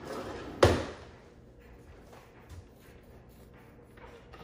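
A sharp knock about two-thirds of a second in, then the faint scratch of a long bread knife sawing through a crusty baked loaf on a wire cooling rack.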